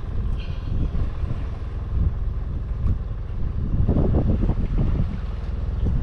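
Strong wind buffeting the microphone in gusts, a heavy low rumble over the sound of the sea around the fishing boat.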